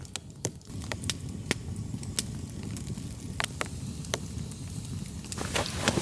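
Campfire crackling, with irregular sharp pops over a steady low rumble. Near the end a rustling hiss rises over it.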